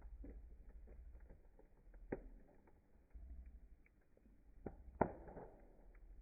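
Wood fire crackling: scattered small pops and ticks over a low rumble, with two louder snaps, about two seconds in and about five seconds in.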